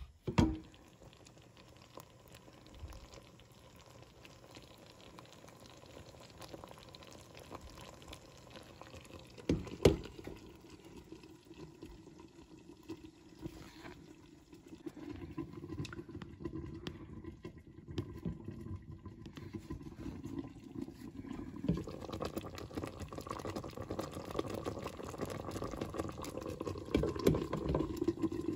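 Sugar syrup with sliced sweet potatoes bubbling in a covered pot, growing louder as it comes up to a rolling boil. There is a sharp knock near the start and another about ten seconds in.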